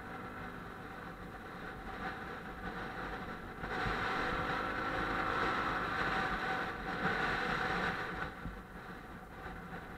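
Small motorbike engine running while riding along a road, mixed with wind and road noise. The sound gets louder about a third of the way in, holds for around four seconds, then eases off again.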